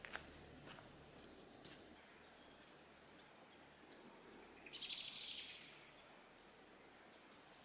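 Forest birds calling: a string of short high notes in the first few seconds, then a brief rapid trill about five seconds in.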